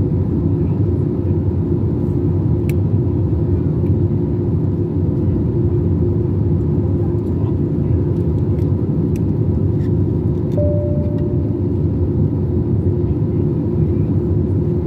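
Steady drone inside the cabin of an Airbus A321-200 in flight: jet engine and airflow noise, deep and even, with a faint hum running through it. A short tone sounds once for about a second, about ten and a half seconds in.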